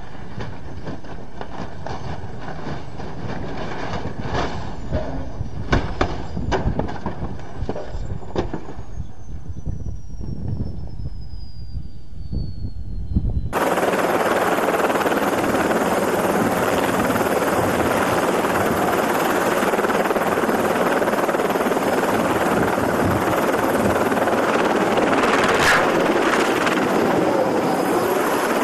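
A Chinook tandem-rotor helicopter running while it tips on the ground, with a burst of sharp knocks and cracks and a high whine that falls steadily in pitch. Then an abrupt cut to a light helicopter's rotor and engine running in a louder, steady rush.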